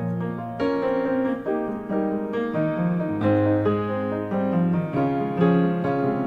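Background piano music: a continuous run of notes over held bass notes, played at an even level.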